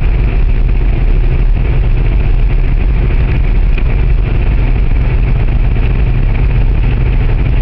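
1974 Volkswagen Fusca 1500's air-cooled flat-four engine running steadily as the car is driven, heard from inside the cabin.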